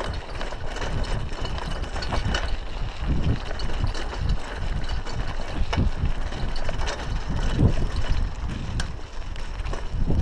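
Raleigh Ascent mountain bike rolling over a rough dirt road: tyres on loose gravel and the bike rattling with irregular knocks and clicks, over a steady low wind rumble on the microphone.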